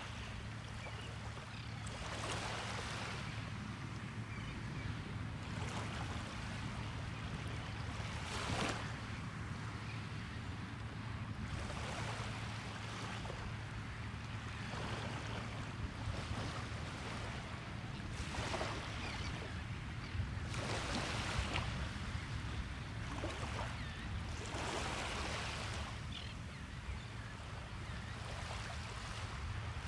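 Small waves breaking and washing up the shore, one swell after another every two to three seconds, over a steady low rumble.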